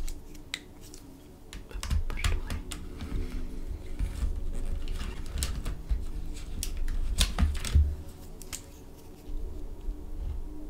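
Plastic pens and markers clicking and clattering as hands rummage through a clear plastic marker case and pick out a pen: a run of irregular sharp taps and clicks, thickest a couple of seconds in and again around seven to eight seconds in.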